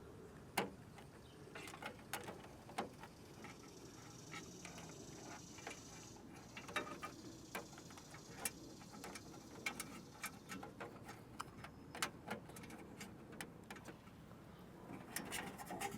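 Scattered light clicks and taps of small plastic parts and wiring being handled while a backup camera's wires are fed through a trunk handle. The sharpest click comes just over half a second in.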